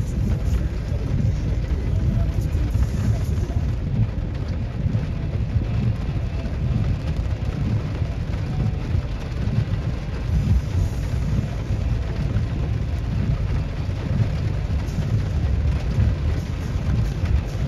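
Severe thunderstorm with heavy rain: a steady, loud noise weighted to the low end, with no single sharp crack of thunder.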